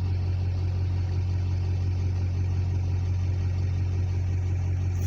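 Steady low drone of a vehicle's engine and road noise heard from inside the cabin.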